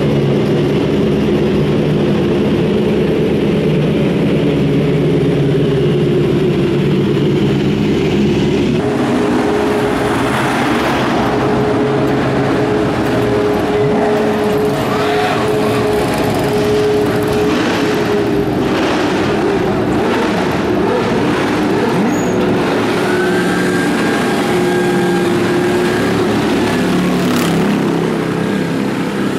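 Ford GT race car's V8 engine running at a steady idle. About nine seconds in, the sound changes to a noisier mix of engine and pit-lane noise.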